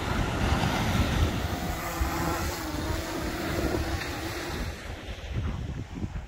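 Fishing drone hovering low overhead, its propellers humming with a slightly wavering pitch as it is brought down to be caught by hand; the hum stops about two-thirds of the way through. Wind rumbles on the microphone throughout.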